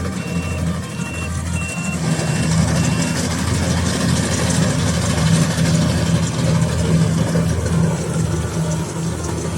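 Rice combine harvester's diesel engine running steadily, growing louder about two seconds in, while its reversing alarm beeps about twice a second for the first few seconds.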